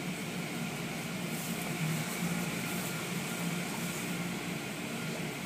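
Steady drone and hiss of an automatic car wash at work, water spraying over the car, heard from inside the car.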